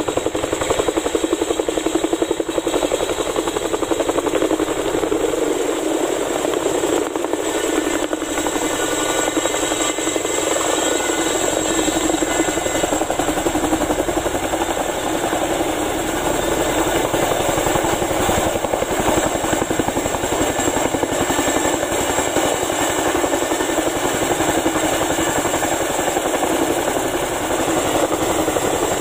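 CH-47 Chinook tandem-rotor helicopter with twin turboshaft engines hovering low and coming in to land, its rotors making a loud, steady, rapid chop.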